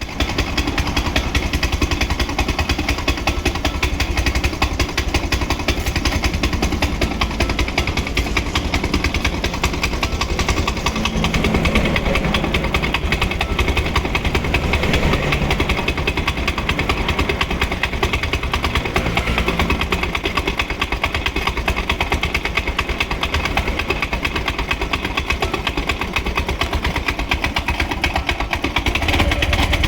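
An old car's engine running with a fast, even clatter: an abnormal noise from running without engine oil.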